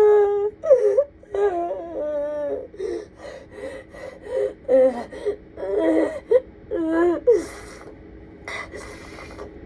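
A woman sobbing and wailing, her voice wavering and breaking in drawn-out cries between gasping breaths. The crying gives way to quieter gasps and breaths near the end.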